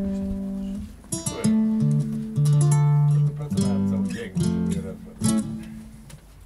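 Nylon-string acoustic guitar playing a short phrase of plucked and strummed chords, and the last chord fades away near the end.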